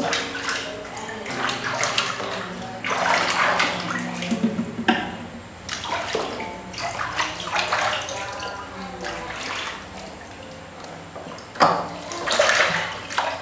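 Water splashing and sloshing in a plastic basin as hands scoop and pour it over a baby monkey being washed, in irregular bursts.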